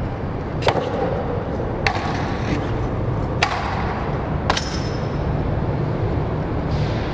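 BMX bike hitting and landing on a concrete ledge and brick paving: four sharp knocks about a second apart, some with a brief metallic ring.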